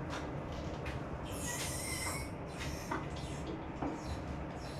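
Squeaking and metallic scraping with a few light knocks as an F20C engine is lowered on a hoist onto an engine stand; the longest squeak and scrape comes about one and a half to two seconds in.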